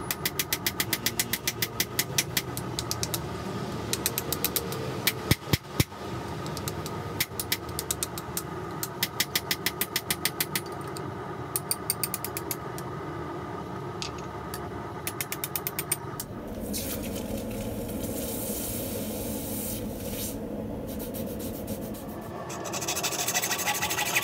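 Working a stuck steel bar out of a forged piece: runs of rapid sharp metallic clicks over a steady roar, with two loud strikes early on. From about two-thirds of the way in, a hacksaw rasps through the steel.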